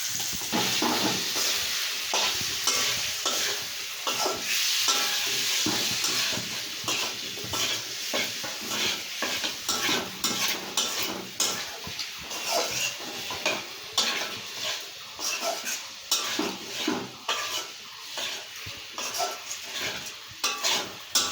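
Potatoes, tomato and freshly added ground spices sizzling in hot oil in a pan while a spatula stirs and scrapes them against the pan. The sizzle is strongest in the first several seconds, and quick scraping knocks run throughout.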